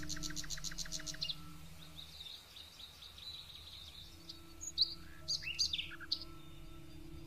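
Small songbirds calling: a rapid high trill that stops about a second in, then a few short high chirps about five seconds in, over a steady low hum.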